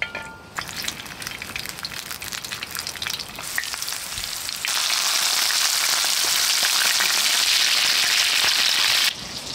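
Food frying in hot oil in a cooking pot: a crackling sizzle that swells to a much louder, steady sizzle about five seconds in, then cuts off abruptly shortly before the end.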